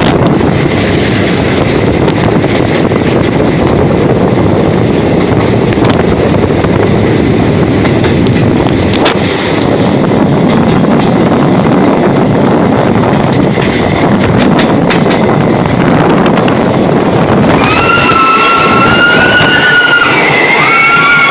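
A train running with a steady, loud rumble and rush of noise, with wind on the microphone. From about three quarters of the way in, high wavering whistle-like tones join it.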